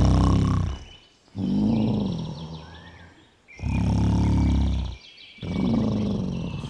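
Comic snoring voiced for a tiger puppet: four long, low-pitched snore breaths, each a second or more, with short gaps between.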